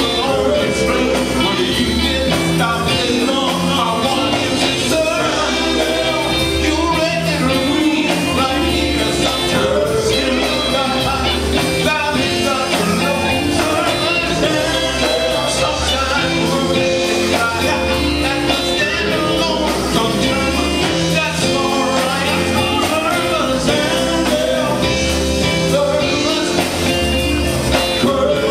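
Live gospel quartet singing with a full band: electric guitars, bass, drum kit and keyboards playing a steady beat.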